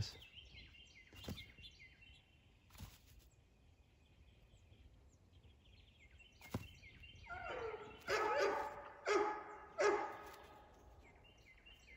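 A German Shepherd gives a run of short, high, pitched calls, loudest in several bursts from about seven to ten seconds in. Faint birds chirp in the quieter first half.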